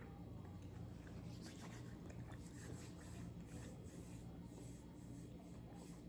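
Faint eating sounds: soft wet chewing of dumplings and small clicks, over a low steady hum.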